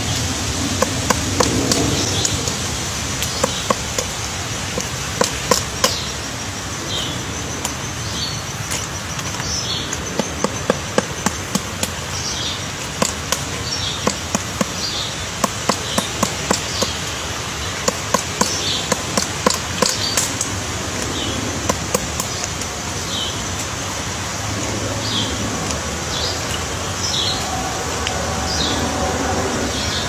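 Pileated woodpecker chiselling into a tree trunk: irregular sharp knocks of bill on wood, some single and some in quick clusters. Short high chirps repeat over a steady background hiss.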